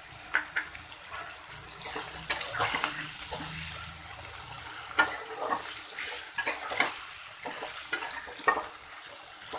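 Diced potatoes, paneer and flat beans frying in oil in a pan with a steady sizzle, while a spatula knocks and scrapes against the pan as the green chillies are stirred in.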